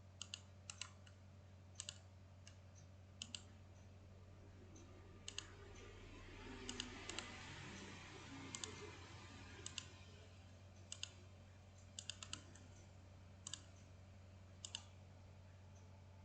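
Sparse clicking at a computer, the clicks coming every second or two and mostly in quick pairs, over a faint steady low hum.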